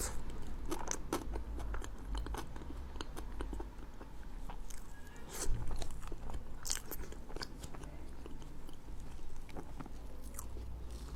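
Close-miked mouth sounds of a person eating a slice of mille-crepe cake: chewing with many small, irregular clicks and smacks, one a little louder about halfway through.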